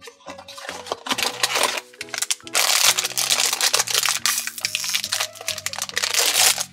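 A cardboard blind box being opened by hand, then a black foil blind bag crinkling and tearing as it is opened, the crinkling densest from about two and a half seconds in. Background music with steady low notes plays throughout.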